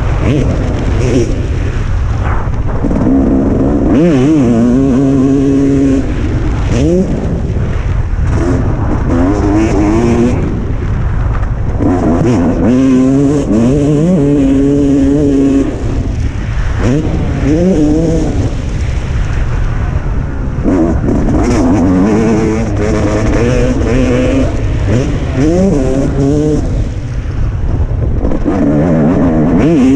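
Motocross bike engine revving hard and easing off again and again, its pitch climbing and dropping many times as the rider works the throttle and gears around the track. A constant low rumble of noise runs under it.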